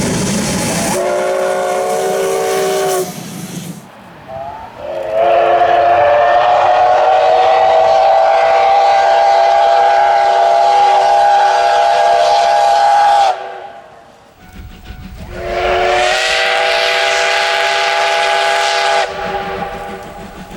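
Japanese steam locomotive whistle blowing a chord of several tones, three times: a short blast, a long blast of about nine seconds that slides slightly up in pitch as it opens, and a shorter blast of about three seconds near the end. Steam hisses along with it.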